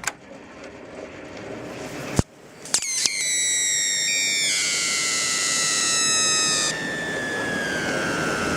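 High-voltage arc from a microwave oven transformer (2000 V) through a dandelion: a few sharp snaps as it strikes, then a steady high whistle that slowly falls in pitch, with a hiss for a few seconds in the middle.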